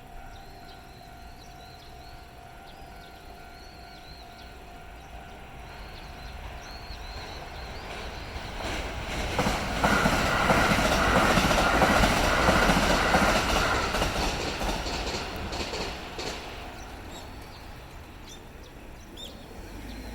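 Kintetsu Nagoya Line electric train passing through a level crossing: the rumble and clatter of the wheels builds, peaks for a few seconds, then fades away. The crossing's electronic warning bell rings steadily over it and stops as the train clears.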